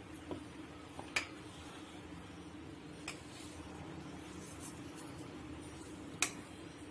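Spoon and dish clinking as food is handled in a bowl: a handful of separate sharp clinks, the loudest about a second in and again near the end, over a faint steady hum.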